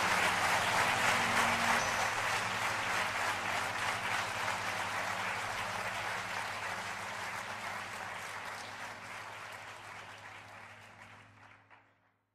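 Audience applauding, with a steady low hum underneath. It fades out gradually and is gone just before the end.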